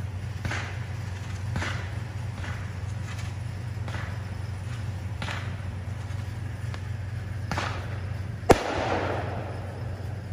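Consumer fireworks going off: about seven soft pops spread over the first eight seconds, then one sharp, loud bang a little past eight seconds in, followed by a crackling spray. A steady low hum runs underneath.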